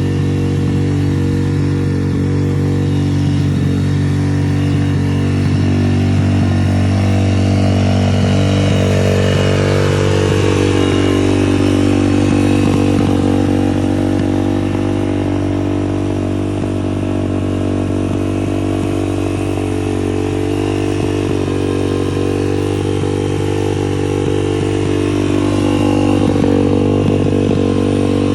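140cc dirt bike's single-cylinder four-stroke engine running steadily at a high idle, with a slight slow swell and dip in pitch twice. The idle is set too high and not yet turned down.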